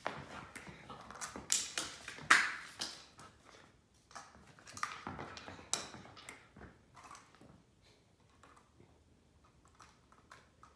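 A dog moving about and pawing and nosing at a chew on a carpeted floor: a run of short clicks, taps and scuffles, busiest in the first seven seconds and loudest a little past two seconds in, then only a few faint ticks.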